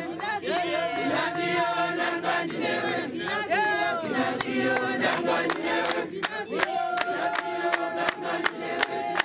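A congregation sings a hymn together, many voices at once. From about halfway through, sharp claps join in, two to three a second, keeping time.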